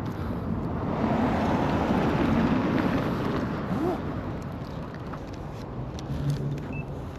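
A car driving past, its tyre and engine noise growing louder over the first couple of seconds and then fading away.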